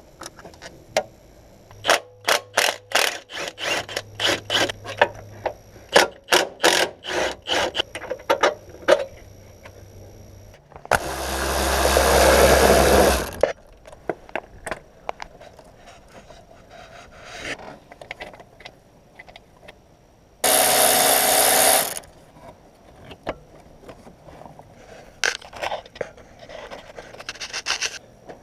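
Tools working on a car during clutch removal: a long run of quick metallic clicks and scrapes, then two loud bursts of a power tool, each a couple of seconds long and stopping abruptly, with a few more clicks near the end.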